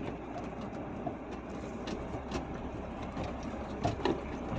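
Inside a truck cab on the move: the engine runs with a steady low hum while the cab and its load rattle with scattered light clicks and knocks, as over an uneven road.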